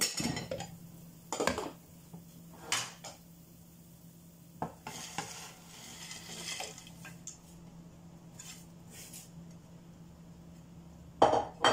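Cookware clatter as a bowl and plate are knocked against metal pots and pans while sliced onion and green beans are tipped in: sharp clinks every second or two, a scraping stretch in the middle, and a loud clatter near the end.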